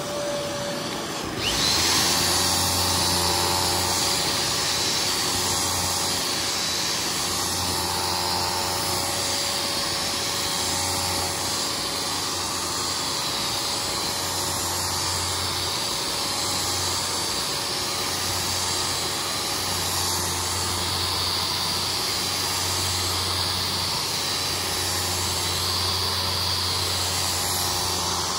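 Power drill fitted with a scrubbing brush spinning up about a second and a half in and scrubbing carpet, its load swelling and easing in uneven strokes every couple of seconds. Under it, the steady hum of a Kärcher cleaning machine.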